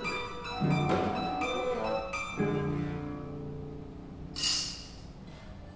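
Improvised experimental cello playing, with a metal cylinder pressed against the strings: ringing string tones with a few strong attacks that fade away toward the end. A short burst of hiss comes about four and a half seconds in.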